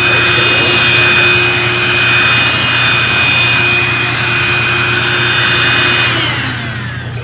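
Cordless handheld vacuum cleaner running with a steady high whine over its airflow rush, then switched off about six seconds in, the whine falling in pitch as the motor spins down.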